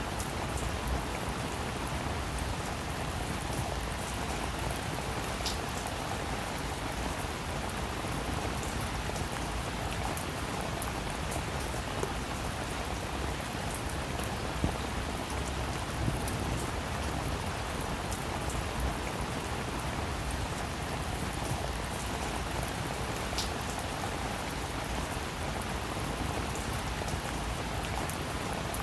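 Steady rain falling, an even hiss with scattered sharp ticks of single drops striking a surface.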